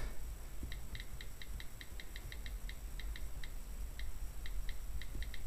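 Typing on an Apple iPad's on-screen keyboard: a quick run of short, light key clicks, several a second, with a brief pause about three and a half seconds in.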